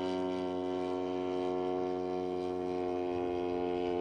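Engine of a large-scale RC Hawker Sea Fury model in flight, running at a steady drone.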